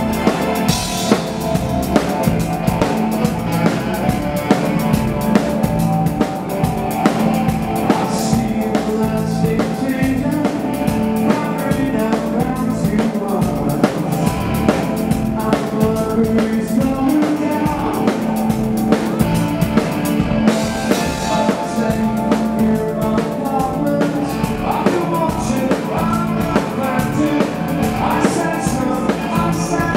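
A live band playing amplified music: a drum kit keeps a steady beat under electric guitar, bass guitar and keyboards.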